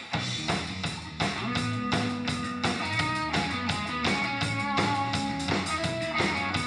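Live rock band playing an instrumental passage with no singing: electric guitar and electric bass over a steady drum-kit beat.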